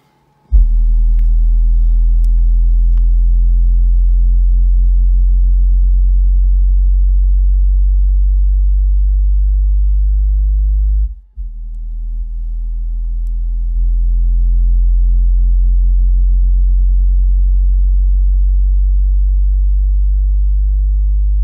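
A single 12-inch subwoofer in a truck cab playing a steady 46 Hz sine test tone at full volume, measuring about 130.7 dB. The subwoofer's box has its brace removed. The tone starts about half a second in, cuts out briefly near the middle, comes back softer and builds back up over a couple of seconds.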